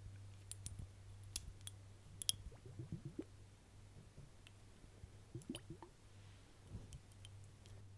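Close-miked wet mouth clicks and kissing smacks, scattered irregularly, with a few low squelching sounds among them over a faint steady low hum.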